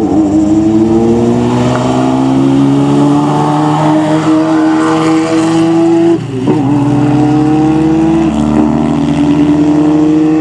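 Hillclimb race car accelerating hard under full throttle: the engine note climbs steadily for about six seconds, drops sharply at an upshift, then climbs again.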